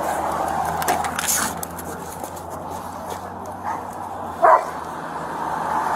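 A dog barking a few short times, the loudest bark about four and a half seconds in, over a steady low hum and background noise.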